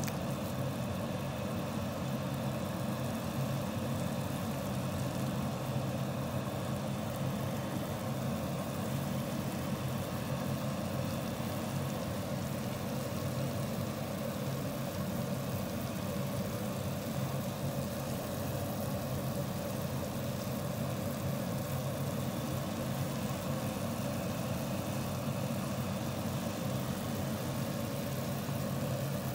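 Steady low mechanical hum with several fixed pitches and a light hiss, unchanging throughout, heard over a pot of ramyeon broth simmering on the stove.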